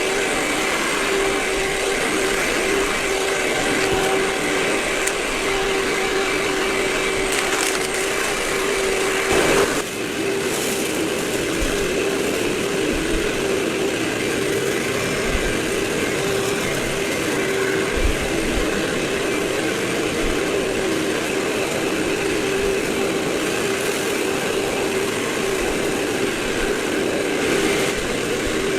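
Vacuum cleaner running steadily with a constant hum, played back at four times normal speed. A brief louder burst comes about nine seconds in.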